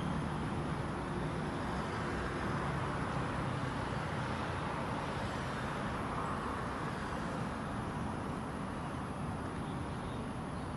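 Steady, continuous background hum of road traffic, with no distinct events standing out.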